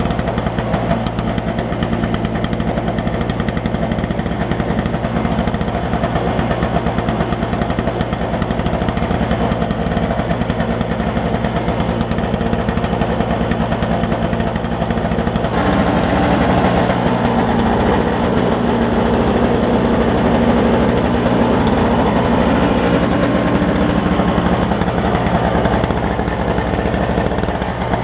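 Toro CCR 2500 snowblower's 5 hp two-stroke engine running steadily after its carburetor was cleaned of bad gas; it gets louder about halfway through.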